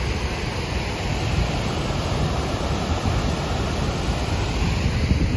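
Steady rushing of Athabasca Falls, a large waterfall pouring through a rock gorge.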